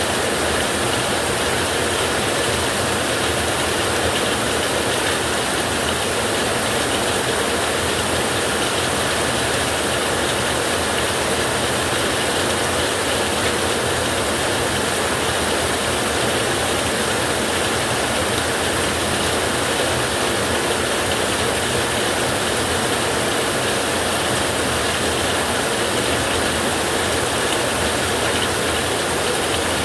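Heavy rain falling steadily on a tin roof, a dense, even patter of drops on metal.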